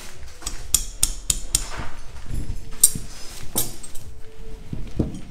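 Sharp knocks and clicks of hard-candy pieces being handled and pressed together on a work table: a quick run of them about half a second in, then single knocks spaced about a second apart.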